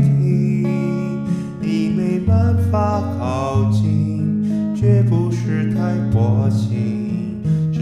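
A man singing, with vibrato on his held notes, to his own acoustic guitar playing chords. Reverb is added to the sound.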